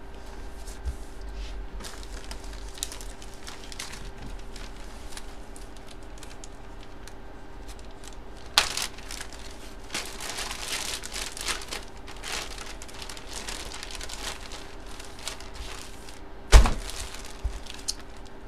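A clear plastic bag around a packaged jersey crinkling and rustling as it is handled and opened. The crinkling is busiest in the middle, and a single sharp knock near the end is the loudest sound.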